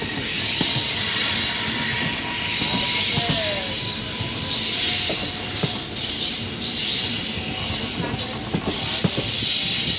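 ICF passenger coach running along the track: a steady rush of wheel and rail noise with irregular clanks and rattles, and a couple of brief faint wheel squeals.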